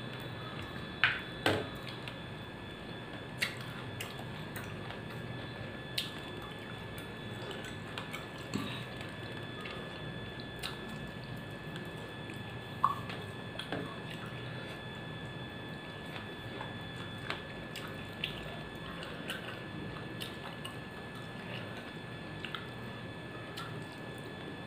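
Eating by hand from a steel plate: fingers squishing and mixing rice with dal and curry, soft chewing, and scattered wet clicks and smacks, the sharpest two in the first couple of seconds and one about halfway, over a steady low hum.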